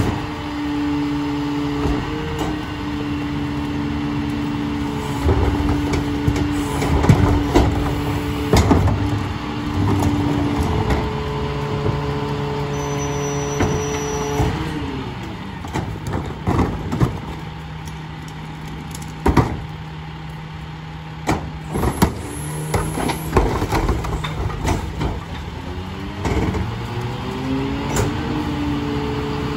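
Freightliner Econic garbage truck with a McNeilus rear-loader body, its engine held at raised revs with a steady whine while the hydraulic packer cycles, with knocks and bangs of trash being handled and crushed. The engine drops back to idle about halfway through, then revs up again near the end for the next packing cycle.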